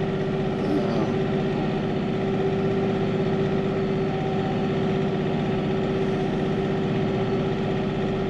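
Tractor engine running steadily at a constant speed, a fast, even pulsing with a steady mid-pitched tone over it, while it pushes snow with a front blade.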